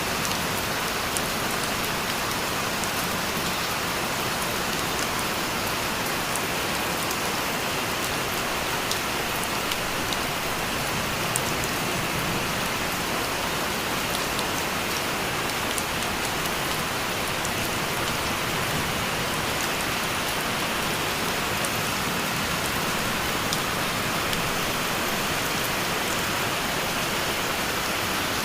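Steady rain falling on a hard surface: an even hiss with scattered sharp drop ticks.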